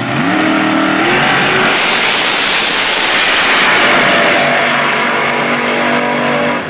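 Two drag-racing dragsters, one a supercharged small-block Chevy, launching side by side: the engines rev up sharply in the first second off the line, then run at full throttle down the track in a loud roar. From about two thirds of the way through, the engine notes drop and hold steadier as the cars get farther away.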